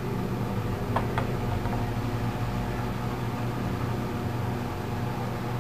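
Steady low electrical or mechanical hum with an even hiss over it, with two faint ticks about a second in.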